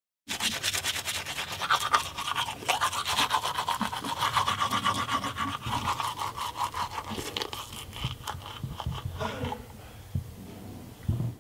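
Manual toothbrush scrubbing teeth in quick back-and-forth strokes through toothpaste foam, growing quieter after about eight seconds.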